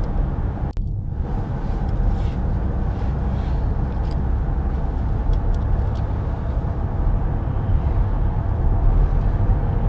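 Steady low rumble of road and engine noise inside the cabin of a pickup truck driving along a road, with a brief sharp dip in the sound a little under a second in.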